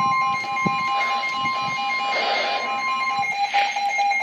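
Emergency alert tone from a weather radio broadcast: a steady high-pitched tone, the NOAA Weather Radio warning alarm, which cuts off about three seconds in, with a rapidly pulsing beep alongside it that stops just before the end.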